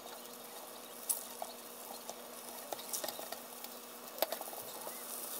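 Wooden chopsticks stirring beaten egg in a small frying pan over high heat on a gas burner: faint sizzling, with scattered taps of the chopsticks against the pan.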